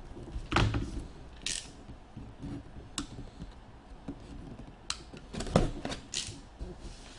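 Hands unpacking a memorabilia box: cardboard and plastic packaging rustling and scraping, with irregular sharp clicks and taps as pieces are handled.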